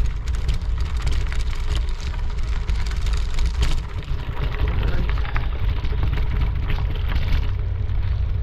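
Steady low wind rumble on a moving camera's microphone, with irregular scuffing and crunching of footsteps on the trail.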